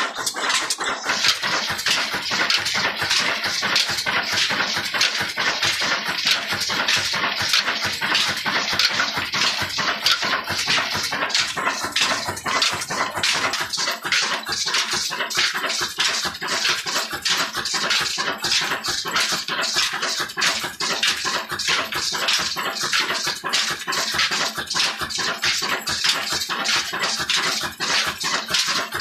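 Old Ruston Hornsby stationary engine running and driving a flour mill through flat belts and line-shaft pulleys: a steady, fast clatter of clicks and rattles.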